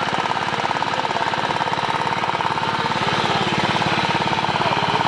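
Engine-driven water pump running steadily with a fast, even knocking pulse, pumping water out of the pond.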